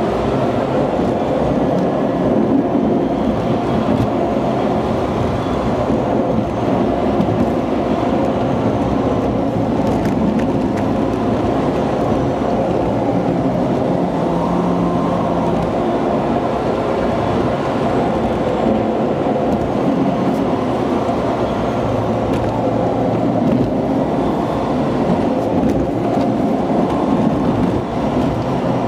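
Car driving noise heard from inside the vehicle, engine and tyre noise running steadily on a winding mountain road, played back at about twice normal speed.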